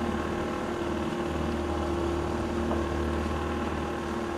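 Motorboat engine running steadily at speed, with wind and water rushing past.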